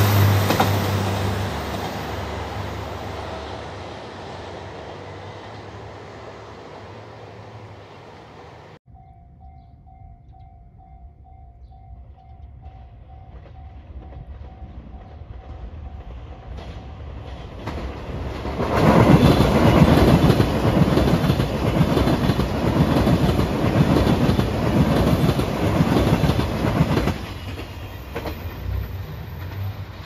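A JR Shikoku 2700 series diesel train runs past and its noise fades away as it pulls off. Then a level-crossing alarm rings with an evenly pulsing tone. After that a loud rushing, rumbling noise rises for about eight seconds.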